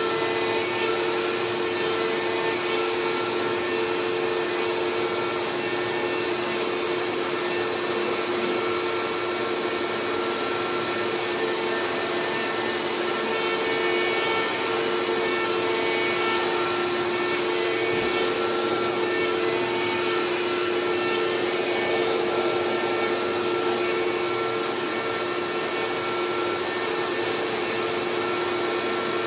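CNC router spindle and its dust-extraction vacuum running steadily while milling a carbon fiber sheet: a constant rushing noise with a steady whine over it.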